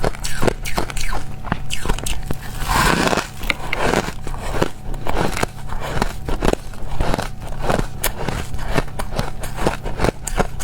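Crushed ice being bitten and chewed close to the microphone: rapid, irregular crunches and cracks, several a second, with a longer grinding crunch about three seconds in.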